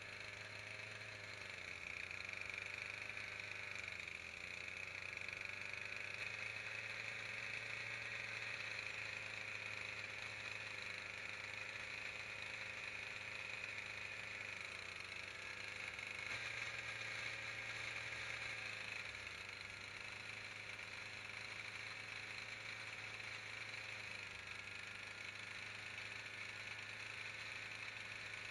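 Small electric motor running steadily, with a low hum and a hissing whine. The pitch and level shift slightly about four seconds in and again about sixteen seconds in.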